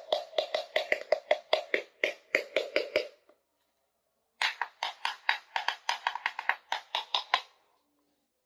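Quick, light tapping on small plastic miniature kitchen toys, about five or six taps a second, in two runs of about three seconds separated by a pause. The first run carries a ringing tone under the taps.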